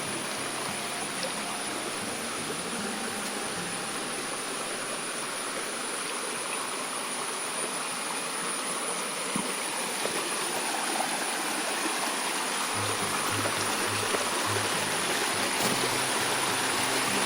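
Small mountain stream rushing over rocks, a steady hiss of flowing water that grows a little louder toward the end.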